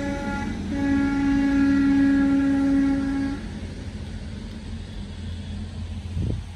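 Electrofishing shocker ('8f' machine) buzzing with a steady pitched tone while it sends current through the pole electrodes into the water. The tone cuts out briefly about half a second in, resumes, then stops a little past three seconds in, leaving a low steady hum.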